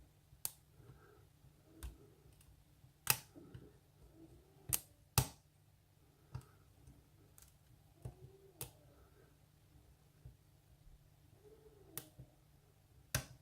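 Sharp, irregular clicks of a lock pick and tension wrench working the pins of a pin-tumbler lock, as pins are set and occasionally dropped.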